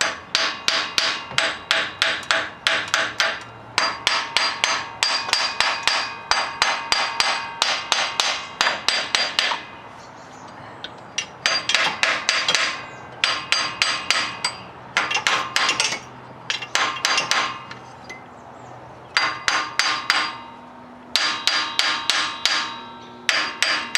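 A hammer beating on a stuck cast-iron intake manifold to break it loose from the engine. It lands rapid flurries of metallic, ringing blows, about four or five a second, with short pauses between the flurries.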